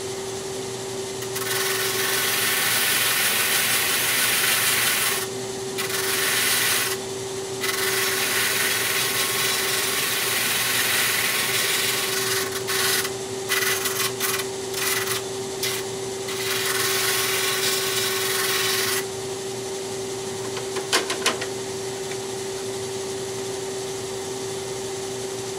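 Wood being shaped on a motor-driven sanding drum: long stretches of gritty sanding as the piece is pressed against the sleeve, broken by several short gaps as it is lifted off and turned, over a steady hum. The sanding stops about nineteen seconds in, leaving the hum and a couple of light clicks.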